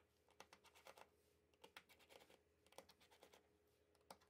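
Near silence, with faint scattered small clicks of a precision screwdriver turning out the screws of a phone's middle frame.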